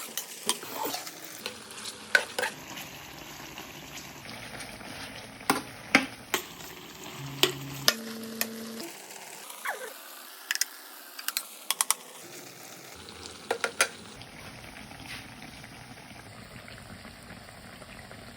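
Food frying in a pan with a steady sizzle, while a utensil stirs it and knocks sharply against the pan every second or two.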